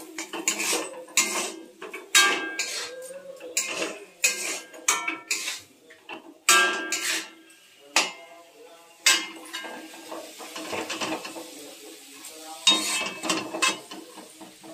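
Metal spatula scraping and clanking against a metal kadai while stirring a thick besan-coated mixture: irregular knocks and scrapes, some with a short ring from the pan.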